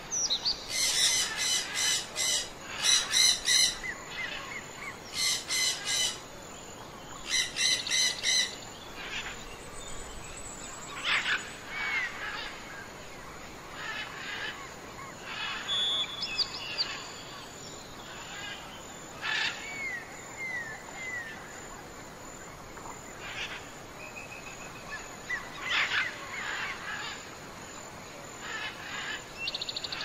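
Wild birds calling: four loud, buzzy calls in the first eight seconds, then scattered shorter chirps and whistles from several birds.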